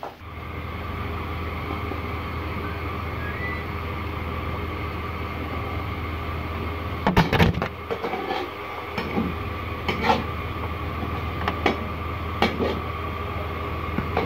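Steady low hum with a faint whine. From about seven seconds in, irregular metallic clanks and knocks of cooking utensils against a large metal wok.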